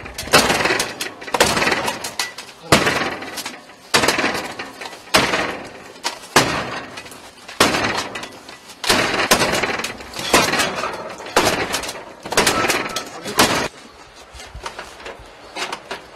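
A handheld battering ram slamming into a heavy metal front door, about a dozen blows at a steady pace of roughly one a second, each with a short ringing clang. The door does not give way, and the blows stop shortly before the end.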